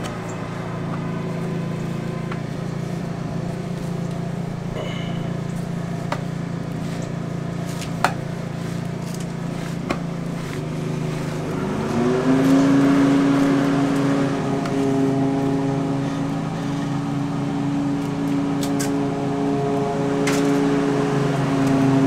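A steady motor hum that rises in pitch about halfway through and then holds at the higher pitch, with a few light clicks.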